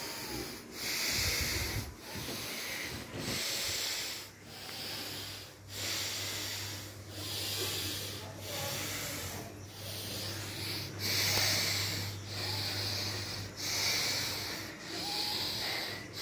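Heavy, rhythmic breathing close to the microphone, about one breath a second. A steady low hum runs underneath from a few seconds in.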